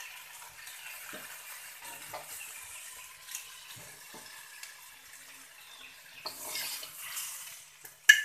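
Bitter gourd stir-fry sizzling in a steel wok, with light scrapes and clicks of a metal spatula. Near the end there is a sharp clatter of the spatula against the wok and plate as the vegetables are scooped out.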